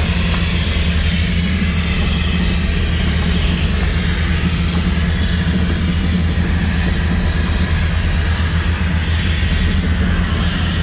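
Heavy equipment engine running steadily and loudly, heard from inside the machine's cab, with a constant low drone and no change in speed.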